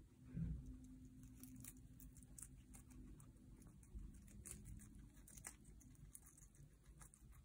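Guinea pigs chewing shredded carrot and lettuce: a quiet, irregular stream of small crisp crunching and nibbling clicks. One soft low thump about half a second in.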